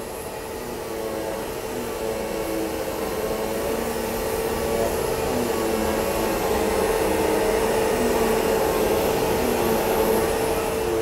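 Orbital sander with a dust-extraction vacuum running steadily as it sands body filler on a car's painted panel, a steady whine that grows slowly louder.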